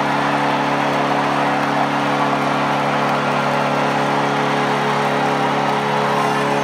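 Packed hockey-arena crowd cheering and yelling in a steady, loud roar after a series-winning playoff victory, over a sustained low droning tone.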